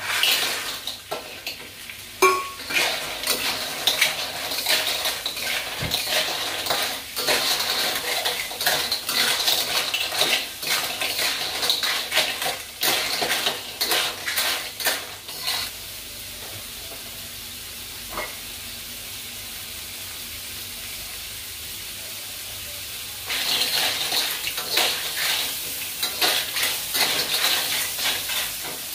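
Clams in their shells tipped into a hot wok and stir-fried with a metal spatula: shells clattering and the spatula scraping the wok over a frying sizzle. The clatter stops for several seconds in the middle, leaving only the sizzle, then starts again near the end.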